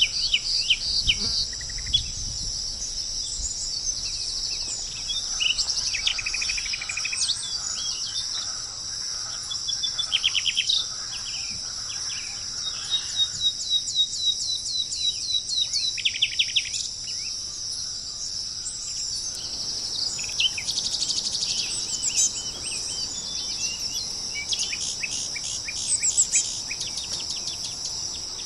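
Several birds singing: rapid trills and runs of quick chirps, coming and going, over a steady high-pitched hiss.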